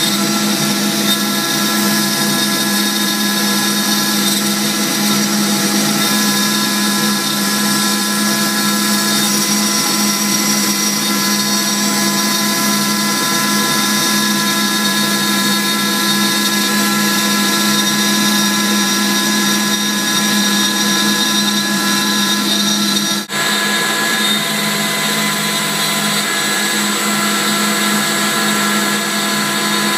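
CNC router spindle running at a steady whine while cutting through a sheet of fibreboard.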